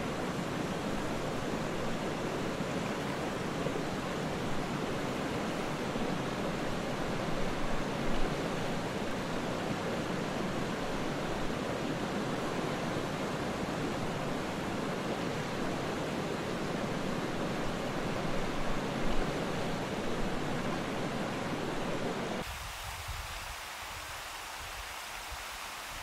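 Jungle river running steadily over rocks. Near the end the sound cuts abruptly to a quieter, thinner flow.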